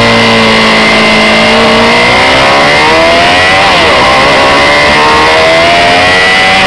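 Honda CB600F Hornet's inline-four engine running under way, its pitch easing off in the first second, then climbing, dropping sharply about four seconds in and climbing again.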